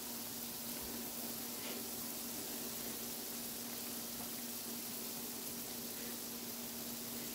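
Flat fish balls and kikiam deep-frying in hot oil in a metal pan, a steady sizzle of small bubbles, with a steady low hum underneath.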